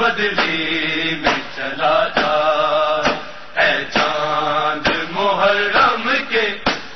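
Chanting of an Urdu Muharram noha, a mourning lament, with sharp beats at roughly regular intervals.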